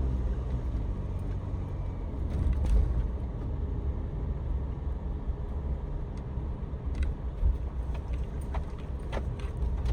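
Steady low road and engine rumble of a Honda N-VAN kei van being driven, heard from inside the cab, with a few faint clicks.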